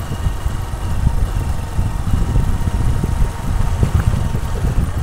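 Wind buffeting the microphone: a loud, irregular low rumble.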